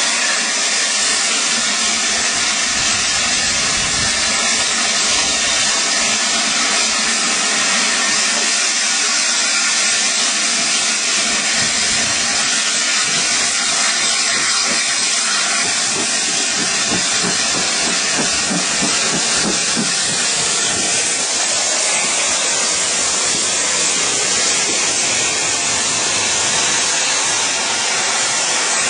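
Steady rushing noise of a moving railway carriage heard from an open window, with wind blowing across the microphone.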